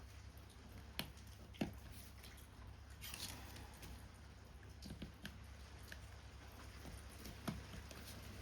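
Quiet paper-craft work sounds: a few sharp clicks and taps of tools and card, with a brief rustle about three seconds in, over a low steady hum.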